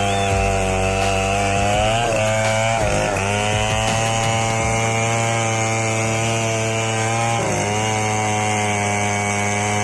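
Chainsaw running steadily while cutting, its engine pitch sagging briefly about two, three and seven and a half seconds in as the chain loads up in the wood.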